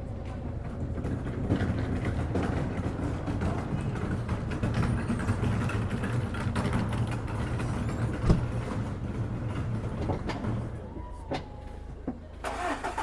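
A motor vehicle passes close by, its low engine rumble swelling over several seconds and dying away about eleven seconds in. A single sharp knock sounds partway through.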